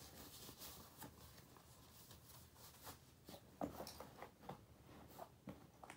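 Faint rustling and scattered small clicks of gloved hands rummaging through broken plastic pieces, with a few sharper clicks in the second half.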